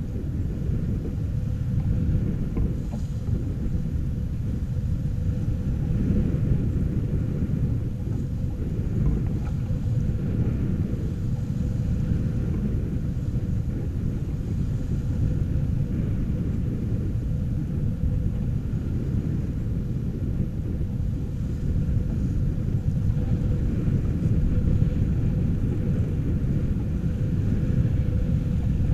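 Wind buffeting the microphone on the deck of a sailing yacht under way, a steady low rumble, with the rush of water along the hull beneath it.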